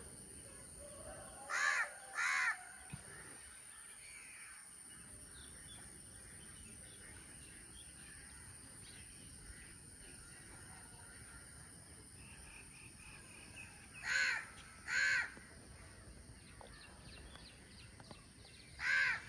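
A crow cawing in pairs of harsh calls: two caws about two seconds in, two more around fourteen seconds, and one more right at the end, over a steady faint hiss.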